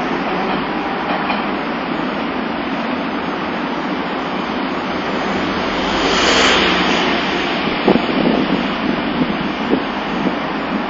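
Nagasaki Electric Tramway streetcar approaching and passing close by the tram-stop platform, its running noise swelling about six seconds in over steady street noise. A few sharp clicks follow as it moves on.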